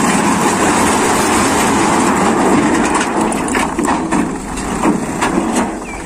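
A load of rocks sliding off a tipped dump-truck bed and tumbling onto the ground: a dense rattling rush with scattered knocks, over the truck's engine running. It eases slightly near the end.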